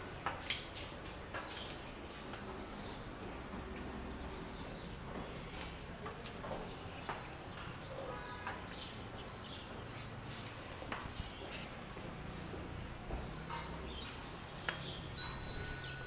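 Small birds chirping continuously, quick high-pitched chirps several times a second, over a low steady hum, with occasional sharp clicks.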